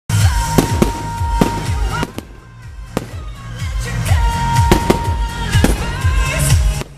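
Aerial firework shells bursting in a string of sharp bangs, with music playing throughout; the blasts ease off briefly about two seconds in before picking up again.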